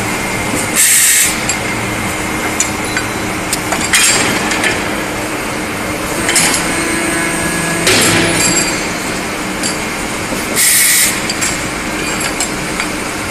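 Automatic metal cutting and chamfering machine running with a steady hum, with scattered metallic clinks as the bar is fed. Two short bursts of air hiss, about ten seconds apart, about a second in and near the end, mark its work cycle.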